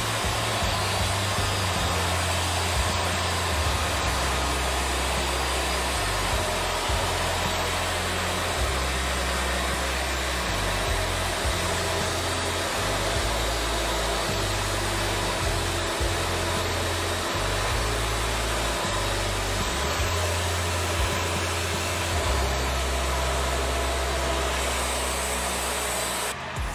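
Wood-Mizer portable band sawmill running steadily through a cherry log, a constant whirring saw-and-motor noise that eases off right at the end.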